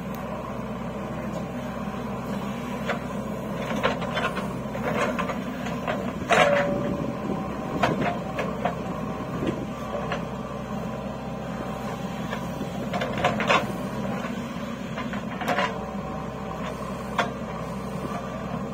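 JCB 3DX backhoe loader's diesel engine running steadily under load as the backhoe digs soil. Scattered sharp metallic clanks from the bucket and arm, the loudest about six seconds in with a short ring after it.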